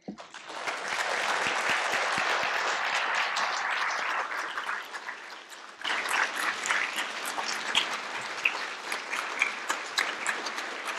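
Congregation applauding. The clapping swells within the first second, thins out, and breaks off abruptly a little over halfway through, then carries on with sharper, more separate claps.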